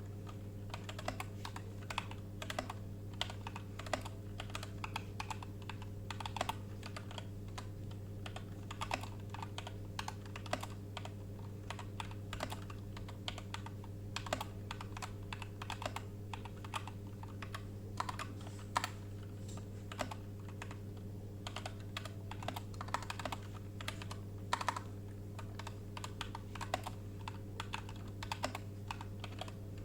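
A new computer keyboard being typed on continuously during a typing test, a fast, irregular run of keystroke clicks at about 30 words per minute. A steady low hum runs underneath.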